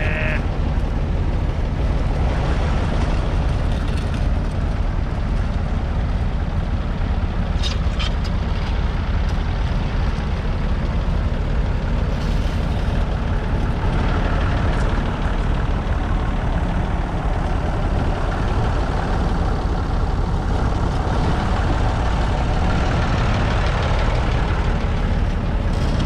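Massey Ferguson 35X's 2.5-litre three-cylinder diesel engine running steadily under load, pulling a two-furrow mounted plough through the soil.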